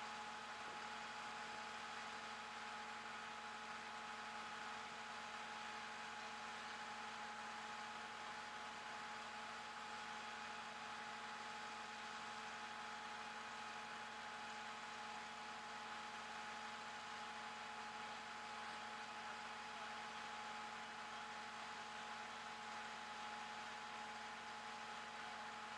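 Steady machine hum with a few constant tones over a hiss, unchanging throughout.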